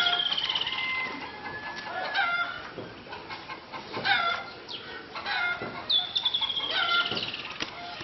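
Birds calling: short clucking calls repeated every second or so, and about six seconds in a high, fast trill that slides downward.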